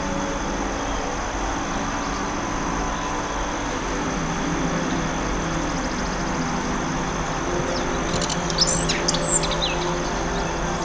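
Steady forest ambience: an even rushing hiss with soft sustained low tones beneath it, and a small bird giving a quick burst of chirps about eight to nine seconds in.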